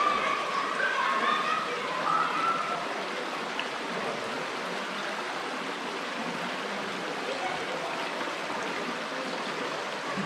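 Shallow rocky creek running over stones, a steady, even rush of water.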